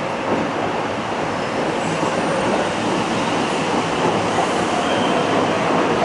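A Docklands Light Railway train of Bombardier B90 and B92 electric cars pulling out of a station: the steady running noise of its wheels and running gear, growing a little louder as it gathers speed.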